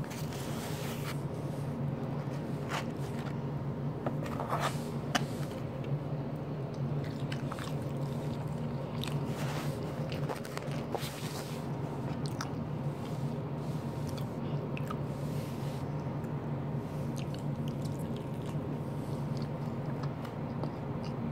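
Steady low machine hum with a few faint fixed tones, overlaid by scattered short clicks, crunches and scrapes of fried food and foam takeout containers being handled close to the microphone, more frequent in the first half.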